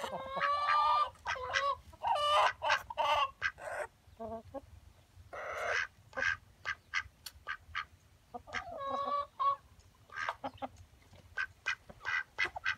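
A penned flock of chickens with a duck among them, calling: many short clucks and squawks, with a longer drawn-out call at the start and another about nine seconds in.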